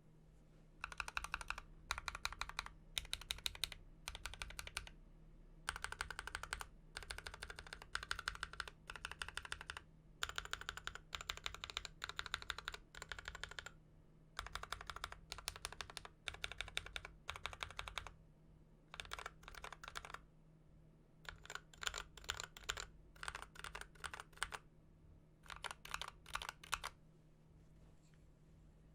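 Typing sound test on a mechanical keyboard fitted with Akko Rose Red linear switches: runs of fast keystrokes a few seconds long, separated by short pauses, stopping a couple of seconds before the end.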